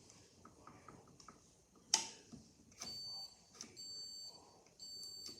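Hoover Dynamic Next washing machine beeping at the end of its wash cycle: a sharp click about two seconds in, then three high-pitched electronic beeps, each about half a second long, roughly one a second.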